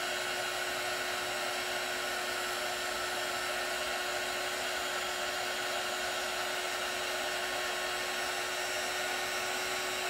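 Embossing heat gun blowing steadily, an even rush of air with a constant hum under it, heating silver embossing powder on a tumbler until it melts into a raised metallic line.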